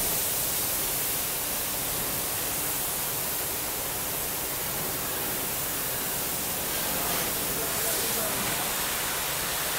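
Steady rushing hiss of compressed air and muddy water surging out of a borewell being flushed with a high-pressure air compressor.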